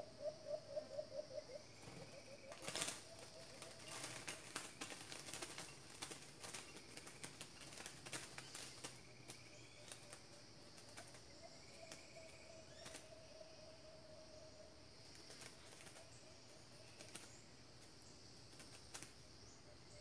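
Faint forest sound: insects drone steadily while a bird gives a low pulsing call at the start and a long low note in the middle. A run of irregular clicks and light taps comes between about two and nine seconds in, with a few more near the end.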